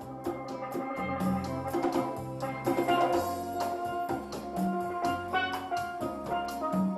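Steel drum duo playing a melody, the bright struck and ringing notes of the steel pans moving quickly over a low bass line.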